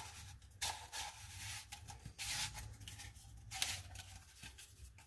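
Light clicks and rubbing of tubular sink-drain fittings being handled and pushed together as a 90-degree elbow is fitted, with a few sharper clicks now and then.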